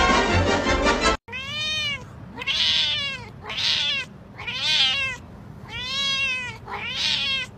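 Music that cuts off about a second in, then a cat meowing over and over: about six separate meows, each rising then falling in pitch, roughly one a second.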